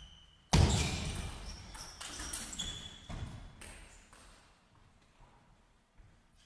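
A table tennis ball gives one short high ping, then about half a second later comes a sudden loud burst of clattering with some squeaks that fades away over about three seconds, followed by a few faint knocks.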